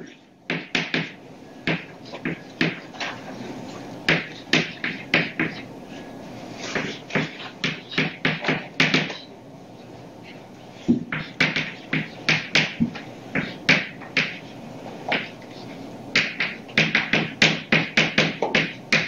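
Chalk writing on a blackboard: quick runs of short taps and scratches as each letter is struck, with a pause of a second or two about halfway through.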